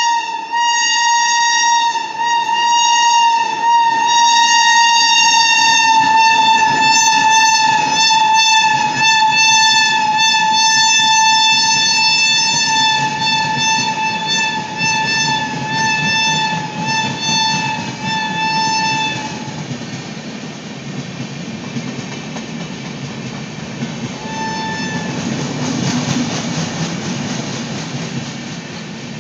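WAP-7 electric locomotive sounding its horn: one long steady note held for about nineteen seconds, then a short blast a few seconds later. Under it come wheel clicks over the rail joints, and the train's rumble grows louder near the end.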